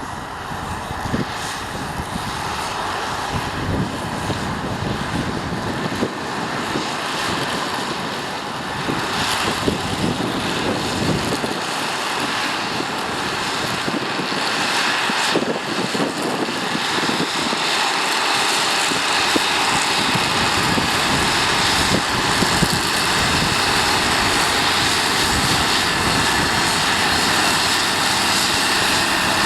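Tractor engine running under load while working a field, a steady drone that grows gradually louder as the tractor approaches.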